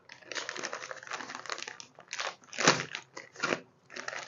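Plastic cable ties being handled, with continuous crinkling and rustling and a few louder rasps about two to three and a half seconds in.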